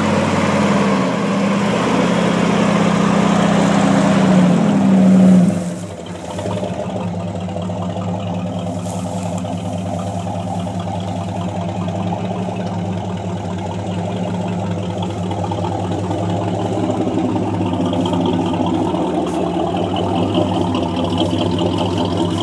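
Ford 460 big-block V8 in a lifted mud truck revving up for about five seconds, its pitch and loudness climbing, then dropping suddenly to a steady idle.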